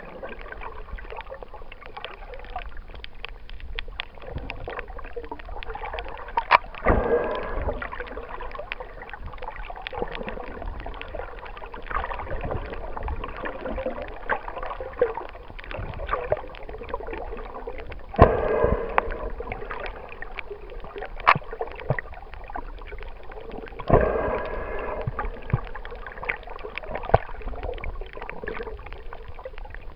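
Water moving against an underwater camera housing while snorkeling: a muffled steady swish, with a louder sloshing surge every five or six seconds and scattered sharp clicks.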